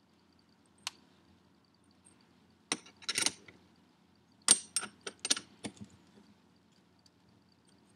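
Small open-end wrench clinking against the compressor wheel nut on a K03 turbo shaft as the nut is snugged up and tightened. One click about a second in, then two clusters of sharp metallic clinks, the second longer, as the wrench is set on and worked around the nut.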